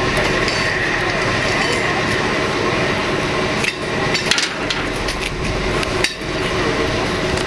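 Steam locomotive, LNER Peppercorn A1 60163 Tornado, pulling a train away from the station: a steady rushing sound, with a string of sharp metallic knocks and clanks from about halfway through.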